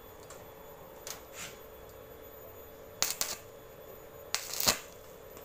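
Crackling electric spark bursts as the tip of a modified slide hammer, fed by a welder cable, is spot-welded onto a dented car body panel so the dent can be pulled. There is a faint burst about a second in, a cluster of sharp cracks about three seconds in, and the loudest, longest burst near the end, all over a steady faint hum.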